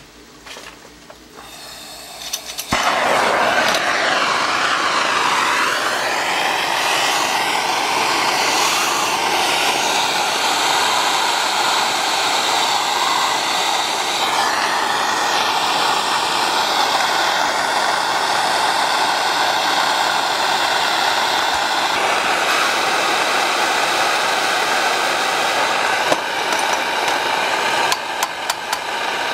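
Propane torch flame lit about three seconds in, then hissing steadily as it heats a copper pipe elbow for soldering.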